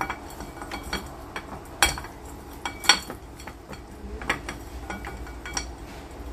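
Boiled pork drumsticks being mixed with seasoning by hand in a ceramic dish: scattered knocks and clinks of meat and bones against the dish, the loudest about two and three seconds in.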